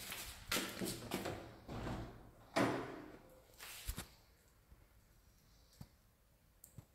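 A wooden door being handled indoors: rustling and knocks, the loudest a sharp knock about two and a half seconds in, then a click about a second later, then only faint room noise.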